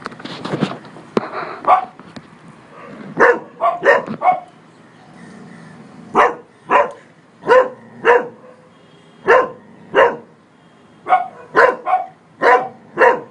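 Cocker spaniel barking: about fifteen short barks, in quick clusters of two to four with pauses between, starting about three seconds in.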